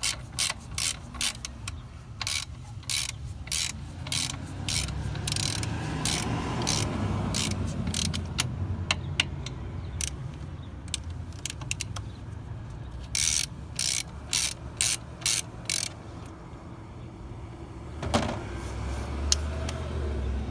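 Hand socket ratchet clicking in short bursts on its back-swings while the alternator's mounting nuts and bolts are worked loose, in runs at the start and again past the middle. A low rumble swells and fades in between.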